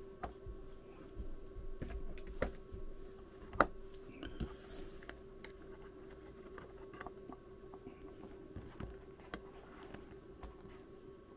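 Hands handling a circuit board and an oscilloscope probe and cable: scattered light clicks and taps, the sharpest about three and a half seconds in and fewer later, over a steady faint hum.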